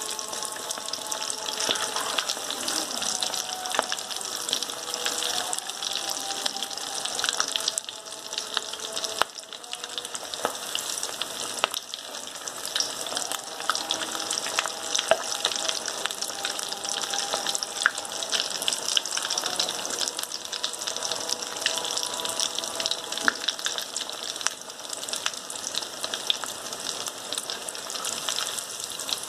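Hot oil sizzling and crackling steadily as vermicelli-coated potato-and-beef balls deep-fry, a dense run of many tiny pops.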